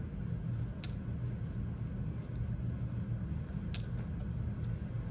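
Steady low room hum, with two faint clicks about a second in and again near the end, from beads being handled on a toy counting abacus.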